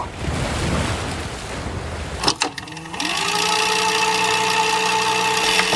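Surf washing on the shore. After about two seconds it cuts off suddenly into a steady buzzing drone with several overtones, which slides up in pitch and then holds.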